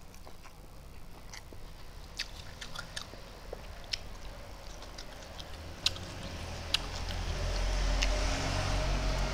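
Close-miked mouth sounds of a man eating rice by hand: wet chewing broken by sharp lip smacks and clicks. A low rumble builds over the last few seconds and becomes the loudest sound.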